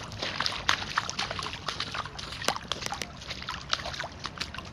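Shallow muddy floodwater sloshing and splashing around wellington boots as someone wades through it, with many small irregular splashes and drips.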